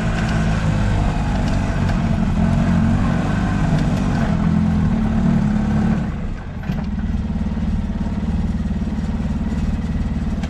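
A vehicle engine running steadily close by, becoming somewhat quieter about six seconds in.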